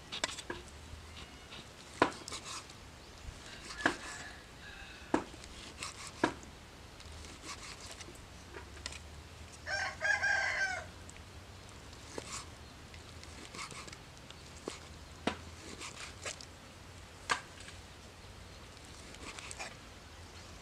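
A cleaver knocking on a wooden chopping board as it slices through raw liver, sharp single knocks every second or two. About ten seconds in, a chicken calls once, for about a second.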